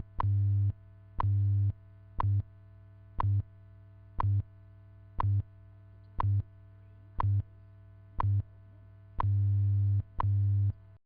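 WWV standard-time radio broadcast: a short tick every second, each with a low buzzing pulse of the 100 Hz time-code subcarrier that lasts about a fifth, a half, or most of a second, encoding the time in binary. A faint steady tone runs underneath, and the audio cuts off at the very end.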